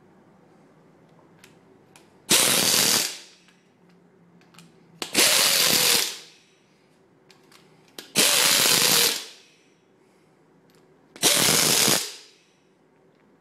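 A 3/8-inch impact wrench hammering in four bursts, each just under a second long and about three seconds apart, running the cylinder head bolts down snug on a small-block Chevy before they are torqued. Faint clicks of the socket going onto each bolt come in between.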